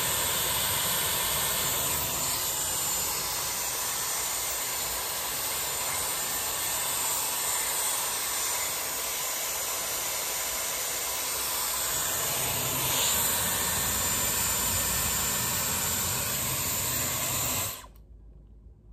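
Dyson Airwrap hair styler running with its curling barrel, a steady rush of blown air from its motor as it wraps a section of hair around the barrel. It cuts off abruptly about a second before the end.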